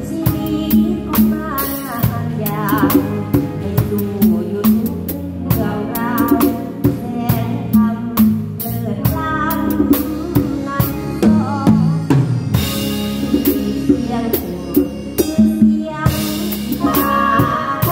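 Acoustic drum kit played in a driving, regular beat, with snare, bass drum and cymbal strikes, over a live band's pitched keyboard and bass parts.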